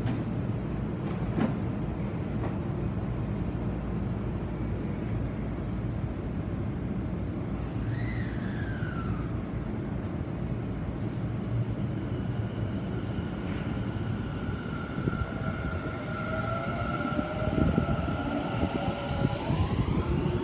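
Tobu 50000-series electric train starting from the platform over a steady low rumble. About seven seconds in there is a short hiss of air. Over the last several seconds the traction inverter's whine sets in and climbs in pitch as the train accelerates away.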